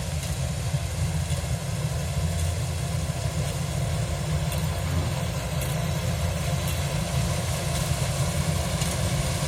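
Kubota DC-105X combine harvester running, its diesel engine droning steadily with no change in speed.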